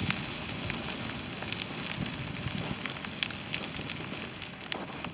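Fire burning on a New Holland T175 tractor and the debris around it: a steady hiss of flames with scattered crackles and pops.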